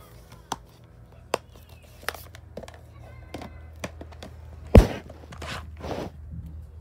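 Plastic DVD cases being handled: a string of sharp clicks and knocks, with one loud thump a little before two-thirds of the way through. Faint music plays in the background.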